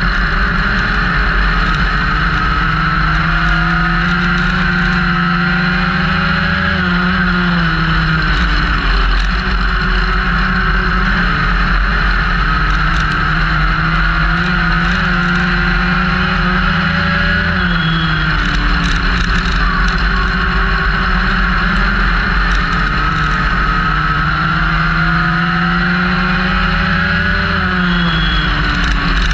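Legends race car's motorcycle-derived engine heard from inside the car during a race, over steady wind and road rush. The engine note climbs for several seconds as the car accelerates and then drops off sharply as the driver lifts, about every ten seconds, three times.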